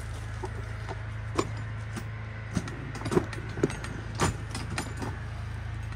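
Small-gauge 7 1/4-inch work train rolling slowly along the track, heard from on board: a steady low hum under irregular clanks and rattles as the cars jolt over the rails.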